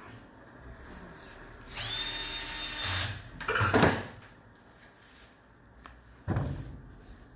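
Handheld power drill-driver running for just over a second, its whine rising and then holding steady. It is followed by a loud clatter, and later by a single sharp knock.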